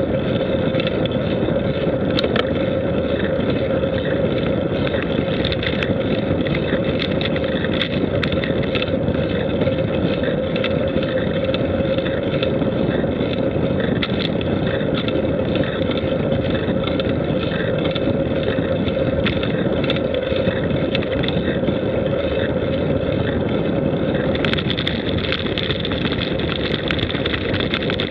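Steady rushing wind and travel noise on the microphone of a camera moving along a paved road, with a constant hum underneath; it turns brighter and hissier about three-quarters of the way in.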